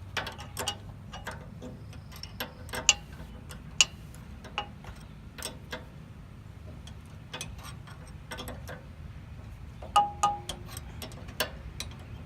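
Irregular metallic clicks and clinks of a hand wrench against a steel nut and the sawmill's guide-roller bracket, with a brief ringing clink about ten seconds in.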